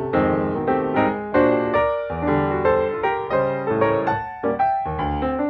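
Background piano music: a gentle melody of single notes, each struck and fading, a few each second.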